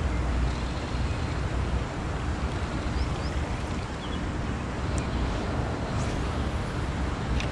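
Wind buffeting the microphone: a steady rush with a fluctuating low rumble, and a few faint ticks.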